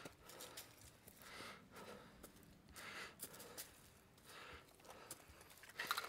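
Faint footsteps crunching through dry leaf litter and brushing past twigs, about one soft swish a second, with the walker's breathing.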